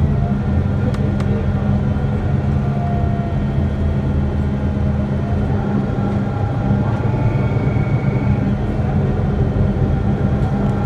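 Inside the passenger cabin of a moving MAN city bus: the steady drone of its diesel engine and running gear, with a faint whine that drifts slowly up and down in pitch.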